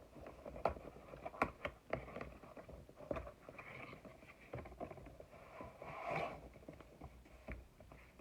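Small box being opened and its contents unwrapped by hand: scattered light taps, clicks and rustles of packaging, with a louder rustle about six seconds in.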